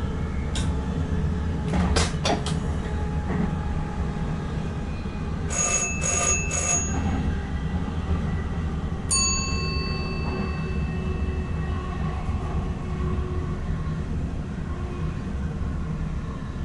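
NS ICM electric multiple unit running along the track, heard from inside the driver's cab as a steady low rumble with a few sharp clicks about two seconds in. About six seconds in come three quick bell-like rings, then a single ringing chime about nine seconds in that dies away slowly.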